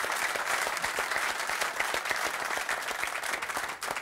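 Studio audience applauding, a dense steady clapping that dies away near the end.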